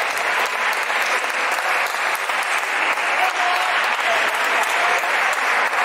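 Steady din of a busy table tennis hall: a dense patter of many ping-pong balls clicking off paddles and tables at several matches at once, with voices mixed in.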